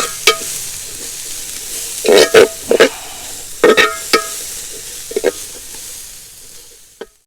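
Chopped onion and green chillies sizzling in hot coconut oil in a metal pan, with a spoon scraping and clanking against the pan in short groups of strokes as it is stirred. The sizzle fades away near the end.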